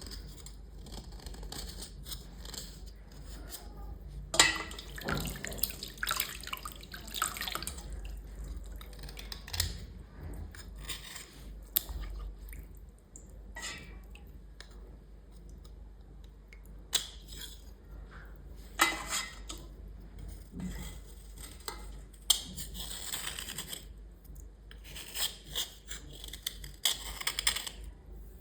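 Small items being scrubbed and scraped clean with water: irregular spells of wet brushing and scraping, with sharp clicks and knocks between them.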